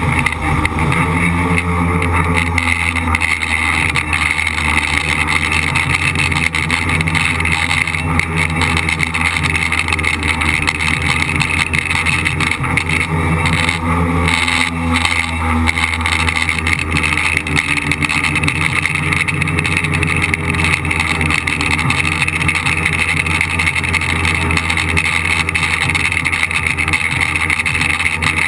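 A radio-controlled tricopter's three electric motors and propellers buzzing steadily, heard close up from the craft's own camera. The pitch wavers up and down a little as the throttle changes, most clearly near the start and about halfway through.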